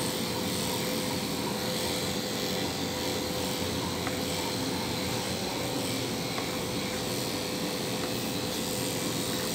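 Corded electric pet clippers running steadily with a constant hum while shaving a dog's coat.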